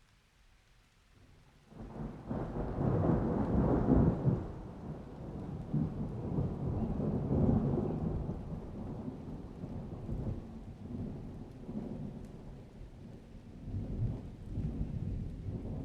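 Dry thunder: a rolling rumble starts about two seconds in, peaks around four seconds, and swells again near the middle. It keeps grumbling and rises once more near the end.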